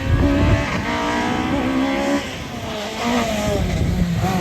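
Race car engine revving hard, its pitch rising and falling several times.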